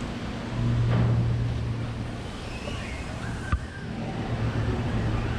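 A low steady engine hum over a continuous outdoor rush of wind or water noise, swelling about half a second in and again near the end, with one sharp click about three and a half seconds in.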